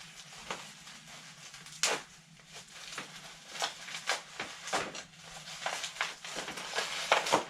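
Hands pulling and tearing open packaging without a knife: an irregular run of crinkles, scrapes and short rips, the sharpest about two seconds in and near the end.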